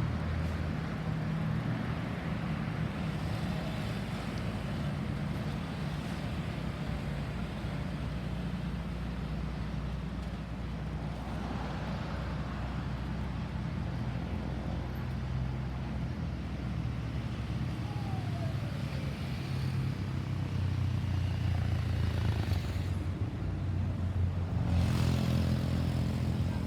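A motor vehicle's engine running steadily with a low hum over road noise, growing louder near the end. No siren is sounding.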